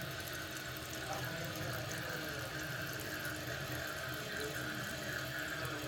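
2008 Kohler Kelston toilet tank refilling, water running in steadily.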